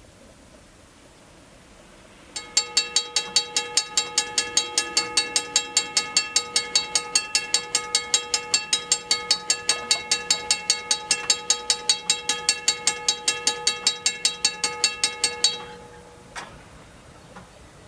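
Railroad grade-crossing bell ringing in fast, even strokes, about four a second. It starts a couple of seconds in and stops a couple of seconds before the end, followed by a single short knock.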